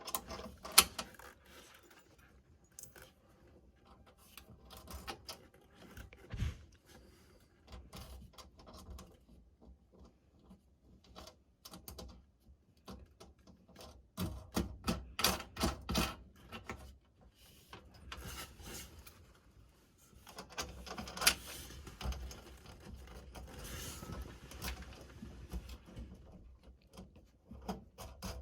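Irregular small clicks, taps and rattles of hand work on a car radio's metal mounting hardware, in bursts, with one sharp click about a second in and a busier stretch around the middle.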